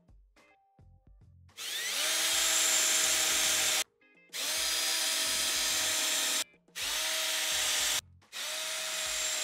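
Cordless drill boring screw holes through a metal mounting plate: four runs of about one to two seconds each with short pauses between, each rising in pitch as the motor spins up and then holding steady as the bit cuts.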